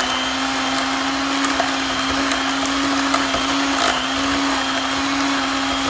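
Handheld electric mixer running at one steady speed, its beaters blending boiled eggs and mayonnaise in a glass bowl.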